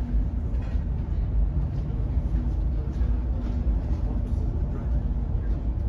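Steady low rumble inside the cabin of the Interislander ferry Kaitaki as it runs through a heavy swell: the ship's engines and the sea working against the hull.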